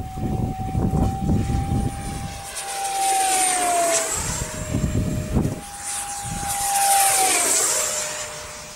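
F-35 fighter jets passing overhead, two passes in quick succession, with a deep rumble of jet noise. Each pass carries a steady engine whine that drops in pitch as the jet goes by.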